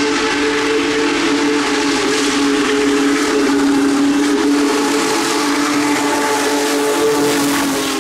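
Union Pacific Big Boy 4014 steam locomotive's whistle blowing one long chord as the engine approaches at speed, over the rushing noise of the running train. The whistle's pitch drops slightly near the end as the locomotive passes.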